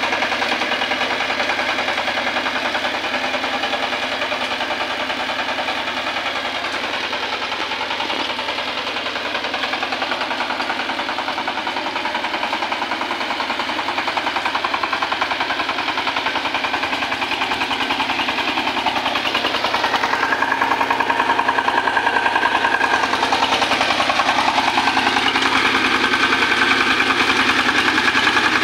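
Kirloskar Mega T15 power tiller's single-cylinder diesel engine running steadily under load as its cage wheels puddle a flooded paddy field. It gets louder over the last third as the tiller comes closer.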